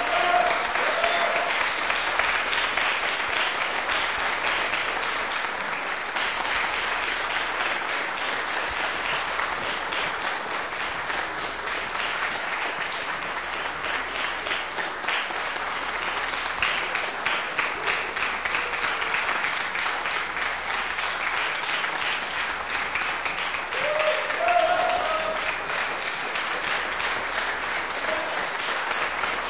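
Audience applauding steadily, with brief voices calling out over the clapping once at the start and again a little before the end.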